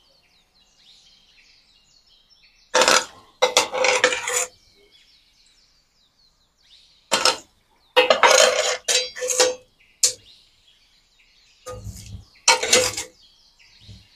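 Metal ladle scraping and knocking against a nonstick frying pan in several bursts as a thick curry is scooped out and served. Faint bird chirping in the background between the bursts.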